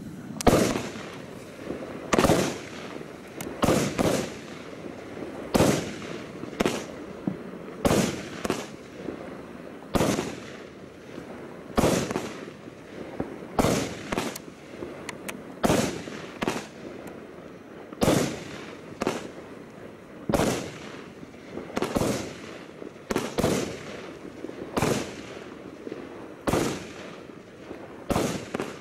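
Bright Star Aerial Array 25-shot barrage cake firing shot after shot: a sharp bang about every one to two seconds, each trailing off in a short echo.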